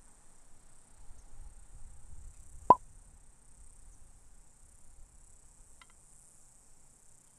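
Steady high-pitched chirring of summer insects, with one sharp pop a little under three seconds in.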